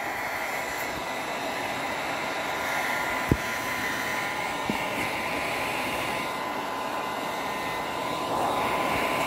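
Electric heat gun blowing steadily, with a thin steady whine in its rush of air. A single sharp knock comes about three seconds in.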